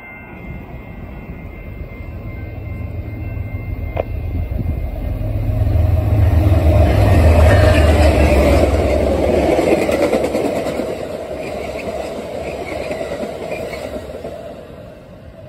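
MBTA commuter rail train passing close by. The diesel locomotive's deep engine rumble builds and is loudest about halfway through as it goes past. Then the passenger coaches' wheels run by on the rails and fade away near the end.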